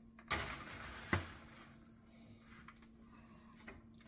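Metal baking tray with a wire rack being pushed onto an oven rack: two short metallic clanks about a second apart, then quieter faint shuffling, over a faint steady hum.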